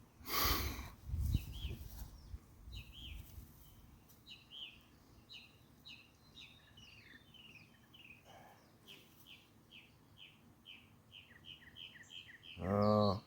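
A small bird chirping over and over, quick short chirps about two or three a second, after a brief rustle or handling noise in the first second.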